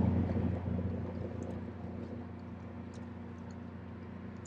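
Boat engine running with a steady low hum, fading over the first two seconds and then continuing quieter.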